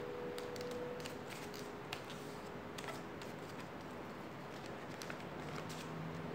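A sheet of paper being folded and creased by hand: scattered light clicks and rustles as fingers press and run along the folds.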